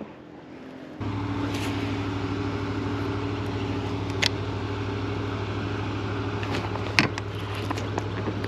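A steady low hum, like a small motor running, starts abruptly about a second in. A few sharp clicks sound over it.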